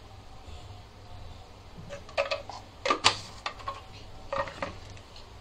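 A few sharp clicks and taps of kitchenware as black pepper is added to raw eggs in a bowl, some with a short ringing; the loudest knock comes about three seconds in.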